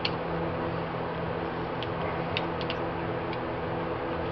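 Screwdriver turning the screw of a worm-gear hose clamp on a garden hose, giving a few light ticks, over a steady mechanical hum.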